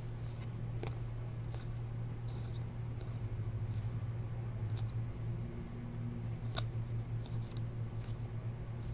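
A stack of Topps Chrome trading cards being shuffled through by hand: faint sliding of stiff, glossy card stock with a few sharper flicks, over a steady low hum.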